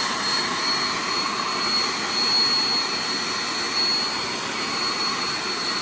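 Handheld blow dryer running steadily on the wig's lace, a whooshing airflow with a thin high whine, drying the glue gel just laid down; it cuts off suddenly at the end.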